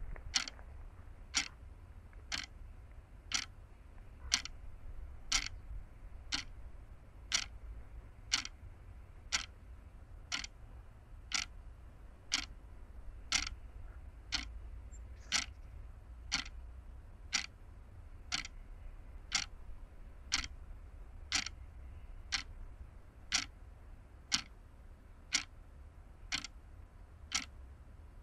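Sharp ticks at a steady, clock-like pace of about one a second, over a low rumble.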